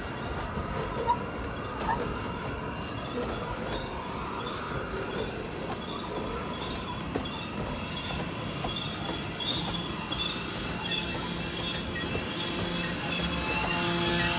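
G-scale model freight cars rolling past on outdoor track: a steady rumble of metal wheels on rail with a few sharp clicks, as over rail joints.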